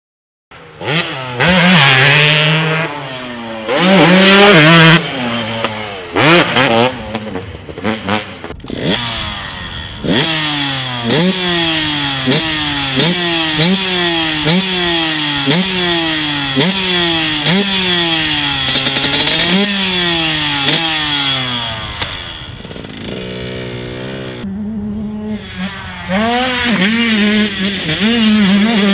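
2022 Husqvarna TC125's 125cc two-stroke engine revving hard. First come short throttle bursts, then a long run of rising-and-falling pitch sweeps about once a second, then full-throttle running.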